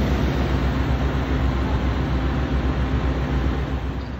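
Fire engine's diesel engine running steadily close by, a loud, deep, even running sound with a faint steady hum in it.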